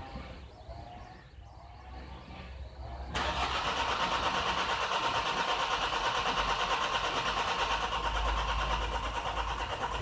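Starter motor cranking a 2-litre common-rail diesel engine for about seven seconds, starting abruptly about three seconds in and cranking steadily without the engine catching. The engine computer is not commanding the injectors because it is not satisfied with the rail fuel pressure, so the engine won't start.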